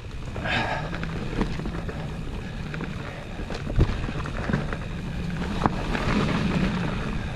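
Mountain bike riding a dirt trail: a steady rumble of tyres and wind on the microphone, broken by sharp knocks and rattles as the bike goes over bumps. The loudest knock comes a little past the middle.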